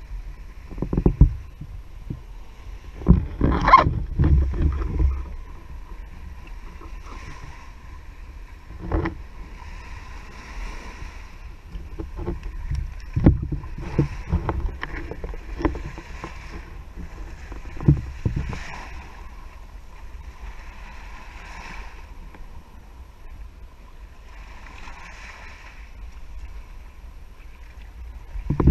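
Small waves breaking and washing up the sand around a camera sitting at the water's edge, a hiss of surf every couple of seconds. Irregular low thumps of water and wind buffet the camera housing.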